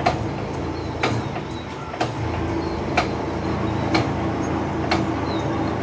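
Metal lathe turning a large workpiece in its chuck: a steady motor and gear hum with a sharp tick about once a second.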